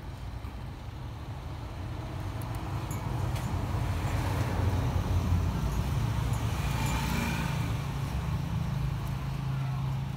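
A low rumbling background noise that swells to its loudest about halfway through and then eases off, with a few faint clicks about three seconds in.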